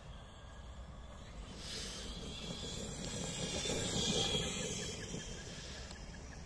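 ZD Pirates 3 RC monster truck driving across grass, its motor and tyres with a hissing whine that grows louder as it nears, loudest about four seconds in, then fades as it moves away.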